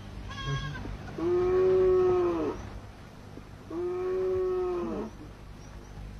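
A farm animal calling: a short higher cry, then two long, drawn-out calls, each over a second, about two and a half seconds apart.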